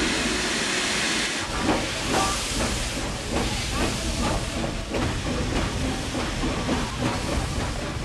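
Steam locomotive hissing as it vents steam, then a regular beat about twice a second as the train gets moving.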